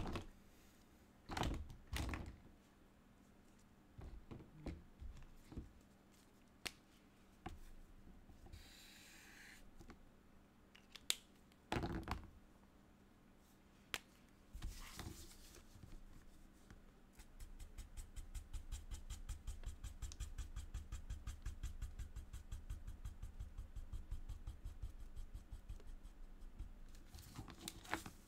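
Felt-tip marker scribbling on paper in fast, even back-and-forth strokes, several a second, colouring in a filled area for about ten seconds in the second half. Before it come scattered clicks and knocks from markers being handled, and near the end the paper sheet rustles as it is lifted.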